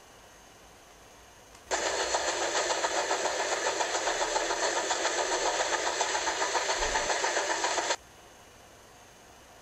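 A dubbed-in engine sound effect with a fast, even pulsing beat. It starts abruptly about two seconds in and cuts off just as abruptly about six seconds later.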